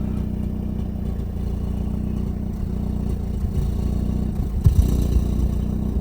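Ford 1.6 petrol engine running with a misfire, heard at the exhaust: a steady low engine note with an uneven beat and a few sharper knocks about four and a half seconds in. The misfire is on cylinder four, pointing to a worn spark plug and ignition coil.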